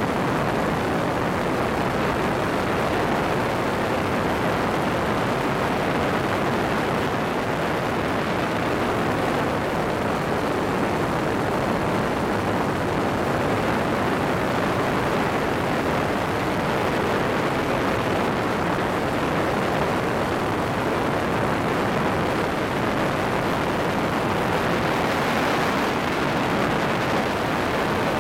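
Weight-shift motorized hang glider (trike) in cruising flight: the engine and pusher propeller run steadily under a constant rush of wind over the wing-mounted microphone.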